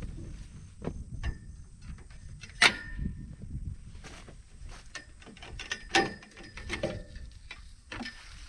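Long fishing poles clattering against a car's metal roof rack as they are slid off, a string of knocks and clicks with a sharp metallic clank about two and a half seconds in and another near six seconds. A low rumble of wind on the microphone runs underneath.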